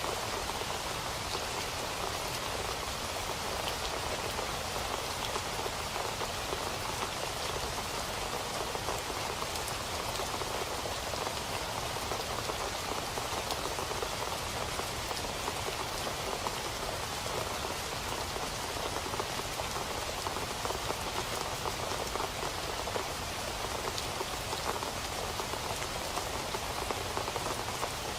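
Steady rain falling on a surface, an even hiss with many fine drop patters.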